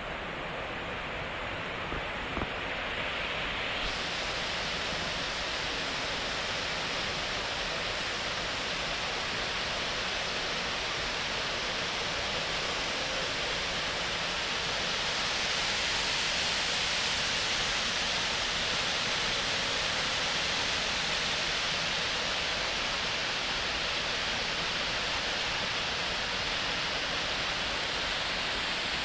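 Fast mountain river rushing over rocks: a steady, dense wash of water noise that swells slightly midway.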